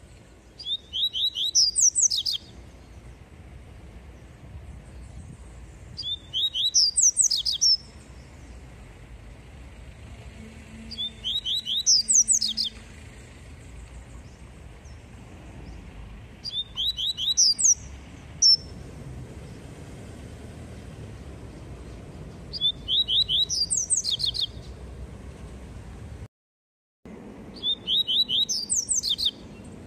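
A caged papa-capim seedeater singing its 'tui tui' song: six short phrases about five seconds apart, each a fast run of rising whistled notes climbing to higher notes at the end, over a steady low hum. The audio drops out briefly about three seconds before the end.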